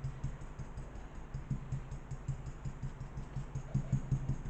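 Stencil brush dabbing paint onto a jug: a quick, irregular run of soft taps, a little louder near the end.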